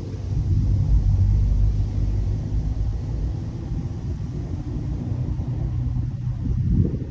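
Mazda ND Roadster (MX-5) on the move: a steady low rumble of engine and road noise with a held low engine tone.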